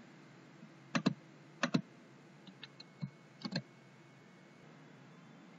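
A few scattered computer keyboard key presses, short sharp clacks at an uneven pace, stopping a little past halfway.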